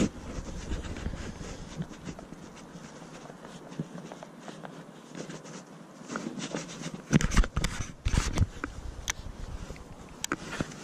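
Irregular scraping, rustling and knocking of the angler's rod, reel and clothing handled close to the camera microphone, with low rumble, and a cluster of louder knocks about seven to eight and a half seconds in.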